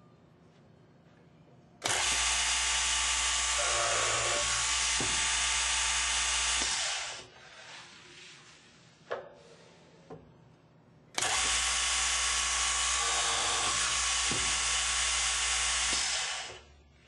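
GANNOMAT DB21 semi-automatic multi-spindle dowel boring machine running two boring cycles, each about five seconds long: the drilling unit starts abruptly, bores the panel and fades as it stops. A few short knocks come between the two cycles.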